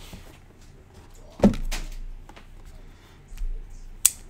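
Sealed cardboard trading-card boxes handled on a table, with a loud short knock about a third of the way in and softer handling noises after it. Near the end comes a sharp click as a folding pocket knife is opened.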